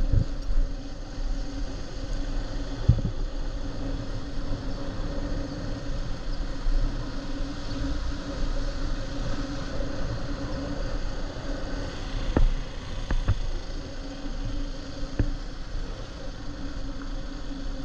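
Small motorbike engine running steadily at low road speed, a constant buzzing hum with road and wind noise. A few sharp knocks come in the second half.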